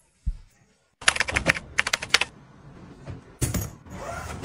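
Hard-shell suitcase being handled: two quick runs of rapid clicks, then a single knock about three and a half seconds in.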